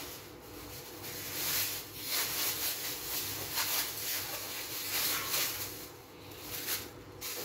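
Thin clear plastic rustling and crinkling as it is handled and crumpled, with a few sharper crackles near the end.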